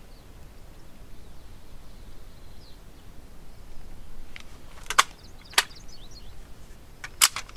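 Sharp metallic clacks of an AR-15-style pistol's action being worked by hand to clear a jammed cartridge: two clacks about half a second apart midway, then two more in quick succession near the end.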